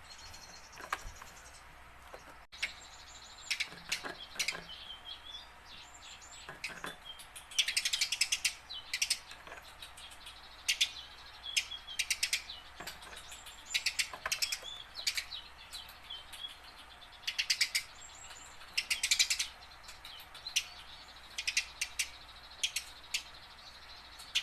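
Tame Eurasian tree sparrow chirping: short high chirps, some single and some in quick rapid runs, with a few louder runs about eight seconds in and again in the second half.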